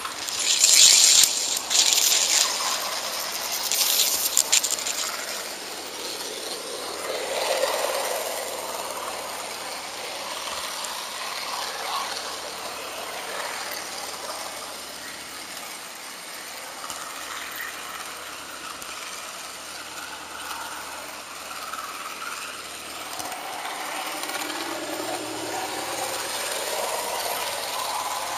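HO-scale model train running along the track, heard from on board: a steady mechanical rattle of the wheels and drive. The clattering is loudest in the first few seconds.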